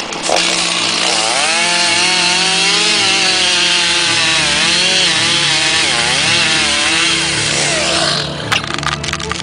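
Chainsaw running and cutting into wood, its engine pitch wavering as it works under load. The saw eases off about eight seconds in, followed by a few sharp cracks.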